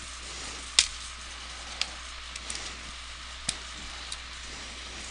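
A handful of small clicks and taps from a USB cable being plugged into the bottom port of an IsatPhone Pro satellite phone and the phone being handled, the loudest a little under a second in, over a steady hiss.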